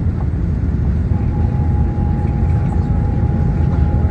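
Inside a moving shuttle bus: the steady low rumble of the engine and tyres on the road. A thin steady whine joins about a second in.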